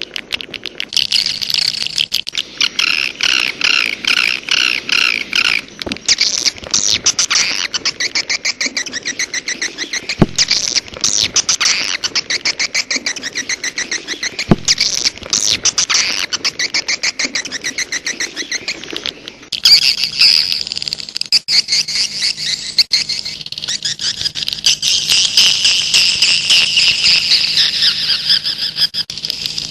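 Bird-call lure recording: fast, repeated chirping and twittering of small birds, played to attract wild birds. The calls change to a fuller, more continuous chirping about twenty seconds in.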